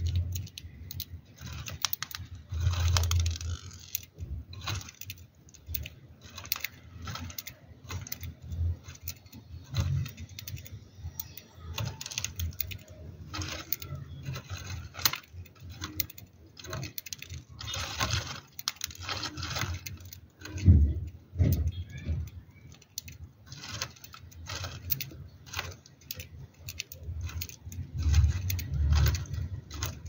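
Budgerigar at a millet spray in a cardboard box: irregular light clicks and scratches throughout, with dull low thumps now and then, the strongest about two-thirds of the way in and near the end.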